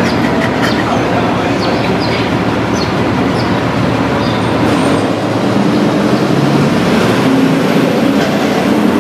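Steady loud rumble of nearby road traffic, growing a little louder in the second half, with a few faint high chirps in the first few seconds.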